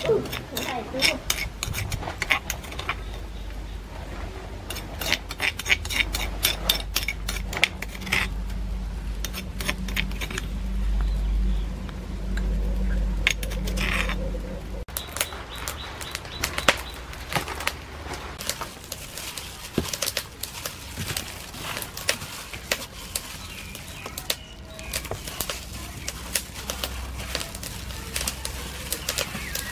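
Food-preparation handling sounds: many quick clicks and light knocks of utensils against bowls over a low rumble. After a cut about halfway through, scattered clicks and rustling come from a hand in a plastic glove mixing marinated pork ears in a steel bowl.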